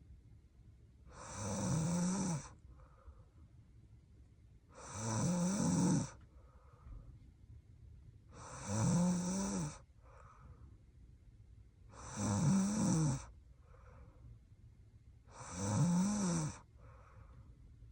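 A young woman snoring in her sleep: five regular snores about three and a half seconds apart, each about a second long, with a faint soft breath between them.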